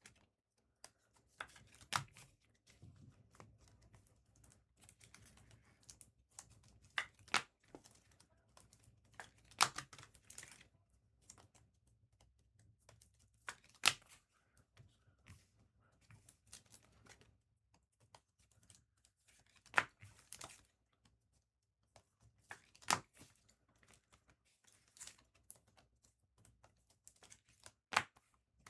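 Trading cards and foil card-pack wrappers being handled: sharp taps and clicks every few seconds, with soft crinkling and tearing between, over a faint low hum.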